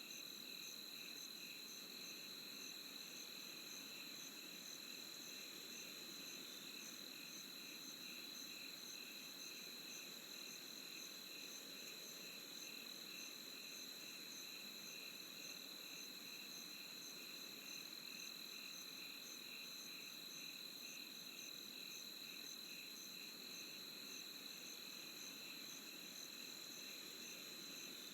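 A steady chorus of crickets and other insects: one constant high trill, with evenly pulsing chirps above and below it.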